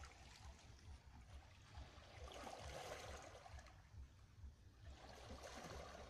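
Faint small waves lapping and washing among shoreline rocks, swelling twice, with a low rumble of wind on the microphone.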